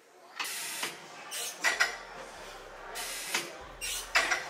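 Plate-loaded gym machine being worked: metal weight plates and frame clinking and clanking in short separate bursts, with a sharp clink near the middle and another near the end.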